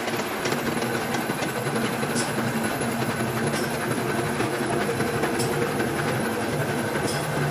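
Rim-rolling machine with heavy iron rollers and gearbox running steadily, a continuous mechanical clatter and hum with a few faint clinks.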